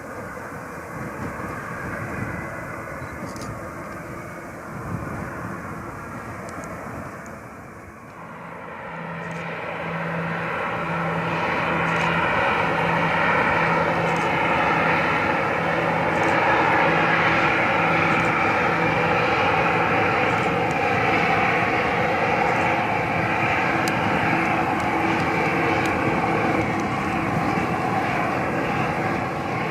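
Airliner engine noise that builds up about a third of the way in as the plane approaches, then stays loud and steady, with a shifting, rippling quality.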